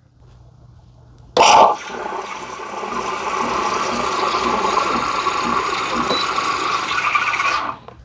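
Gourmia automatic espresso machine frothing milk and spurting it into a glass of espresso. A sudden burst about a second and a half in gives way to a steady hiss that cuts off near the end.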